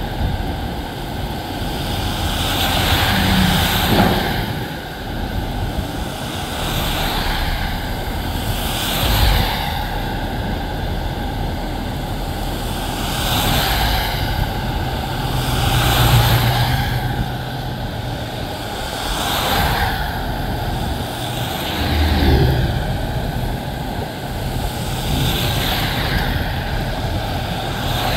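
Road traffic passing close by on a rain-wet road: about seven vehicles go past in turn, each one's tyre swish and engine swelling and fading.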